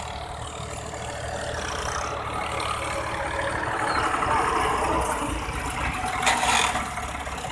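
Farm tractor's diesel engine running, growing louder toward the middle as it comes close. There is a brief rushing noise near the end.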